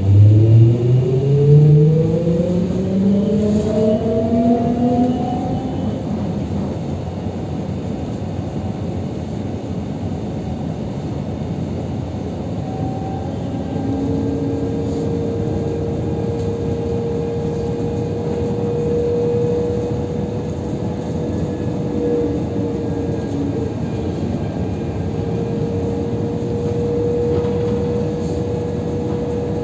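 Translohr tram heard from inside the car: its electric drive whines, rising in pitch as it accelerates away over the first five or six seconds, then settles into a steady whine over the even rolling noise of the rubber tyres while cruising.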